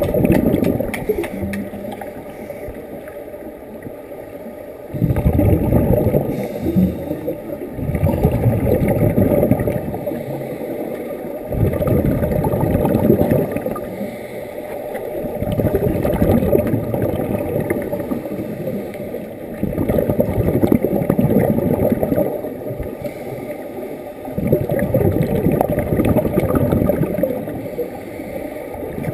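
Scuba regulator exhaust bubbles heard underwater through a GoPro's waterproof housing, a muffled low bubbling rumble that swells and fades in bursts every three to four seconds with each exhaled breath.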